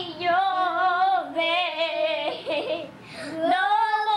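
A young child singing long, high notes with a wavering pitch and no clear words. There is a short break a little past the middle, then a rising note that is held.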